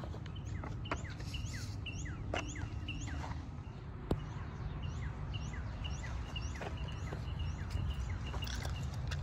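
Small birds chirping, short quick notes repeating throughout, over a steady low background rumble, with one sharp click about four seconds in.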